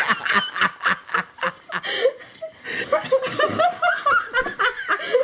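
A man laughing: quick runs of short chuckles, then higher-pitched giggling after a brief pause about two seconds in.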